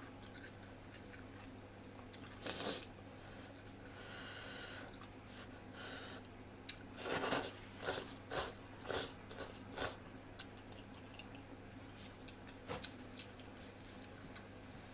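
Person eating instant ramen noodles close to the microphone: chewing and biting noises in irregular bursts, with a longer stretch around four seconds in and a quick run of several between about seven and ten seconds in.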